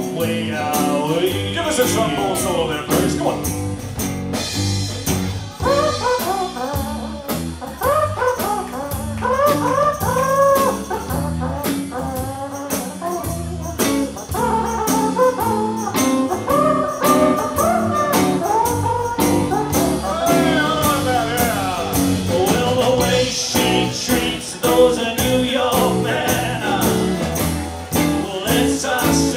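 A live blues band playing with a steady beat: a saxophone near the start, then a man singing over electric guitar.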